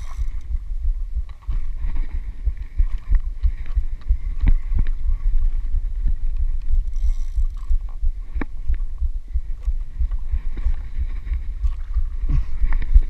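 Steady low rumble of wind and sea on the microphone of a small boat on open water, with scattered short knocks and clicks as the rod and reel are handled.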